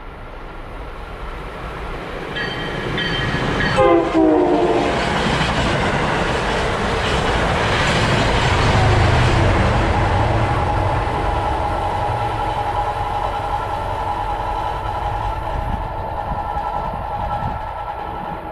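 A train passing at speed: its horn sounds briefly about four seconds in, the pitch dropping sharply as it goes by. The rumble and rush of the train on the rails follow, with a steady high ringing tone joining about halfway through.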